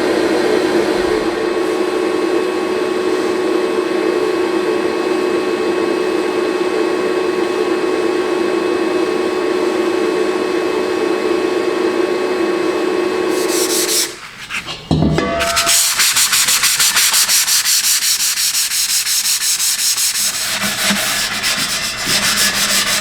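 A power tool running with a steady whine, which cuts out about two-thirds of the way through. After a brief gap comes a fast, rhythmic abrasive scraping on metal.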